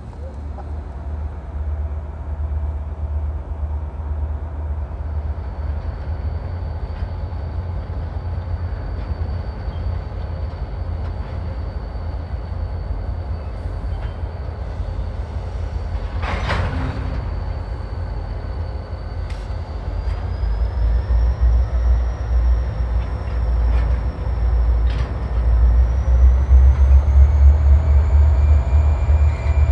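Diesel freight locomotives working at low speed, a heavy steady engine rumble that grows louder about two-thirds of the way through as they pull harder, with a thin high whine that steps up in pitch twice. About halfway through comes a single sharp clank.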